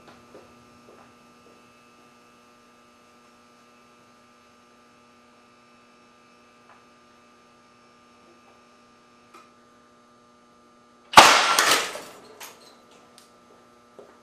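Steady electrical hum, then about eleven seconds in a single loud, sharp blast as the spool valve air cannon fires a lead slug at 300 psi, dying away over about a second with a few small clicks after.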